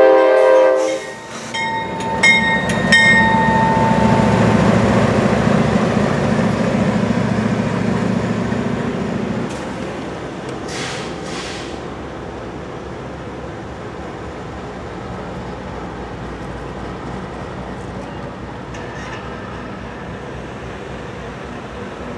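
A GE D9-40CW diesel-electric locomotive: its horn cuts off about a second in, a couple of short tones follow, then its 16-cylinder diesel runs loudly as the locomotive passes and fades after about nine seconds into a quieter, steady background.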